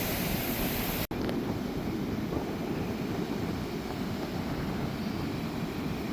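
Wind buffeting the microphone over the steady wash of ocean surf, with a sudden break about a second in where the recording cuts.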